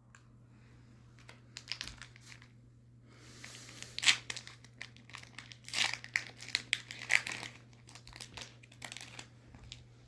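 Foil booster-pack wrapper being crinkled and torn open by hand, in irregular bursts of crackling that are loudest about four and six seconds in.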